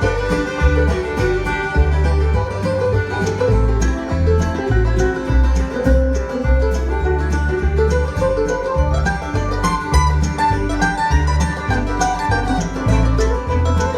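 Live bluegrass band playing an instrumental break: banjo rolls and guitar over a steady upright-bass pulse, with a fiddle carrying the melody.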